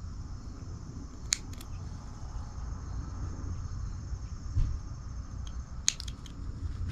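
Small bonsai trimmers snipping needles off a young Japanese black pine: a sharp snip about a second in, another just after, and a quick run of snips near the end, over a low steady rumble.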